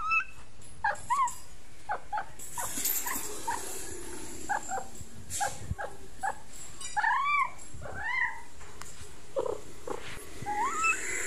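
Grey tabby feral cat meowing over and over: a string of short meows, with two longer meows about seven and eight seconds in that rise and then fall in pitch.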